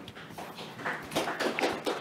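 Audience applauding, the clapping growing louder about a second in.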